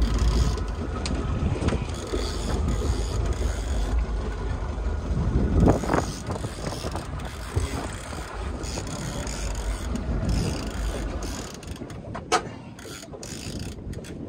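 Fishing reel being cranked in against a hooked fish, its gears ticking, over a steady low rumble of wind and boat that drops away about twelve seconds in. A single sharp click comes just after the rumble fades.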